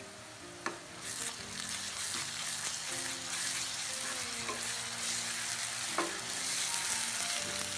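Onions, curry leaves and ginger-garlic paste sizzling in hot oil in a nonstick kadai while a wooden spatula stirs and sautés them. The sizzle grows louder about a second in, and the spatula knocks sharply against the pan a couple of times.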